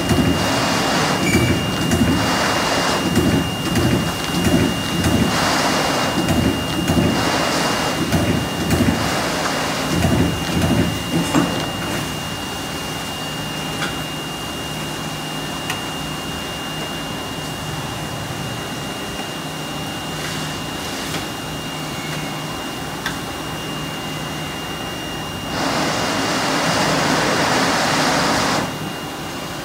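Whitney 3700-ATC CNC punch/plasma combination machine at work: a rapid series of repeated noisy strokes, roughly two a second, for the first eleven seconds or so. Then a steadier machine hum with a thin high tone, and a loud three-second hiss near the end.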